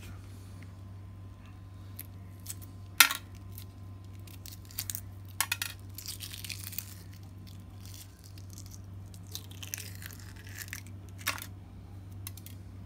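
Hard-boiled egg being peeled by hand: the cracked shell crackles and tears as it comes away, with a few sharp clicks, the loudest about three seconds in, over a steady low hum.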